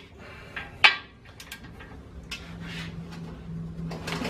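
A few sharp metal clinks and knocks of a torque wrench and socket against the main bearing caps of a cast-iron Ford FE engine block, the loudest about a second in.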